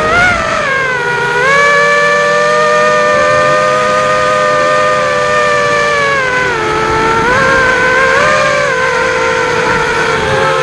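FPV quadcopter's electric motors and propellers whining steadily, the pitch dipping and rising several times as the throttle changes.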